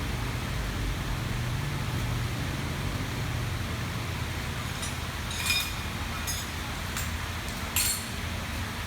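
Motorbike engine idling with a steady low hum, with a few sharp metallic clinks about halfway through and again near the end.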